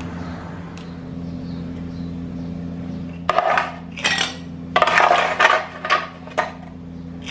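Kitchenware being handled: several short clatters and clinks of glass, cup or utensils, starting about halfway through, over a steady low hum.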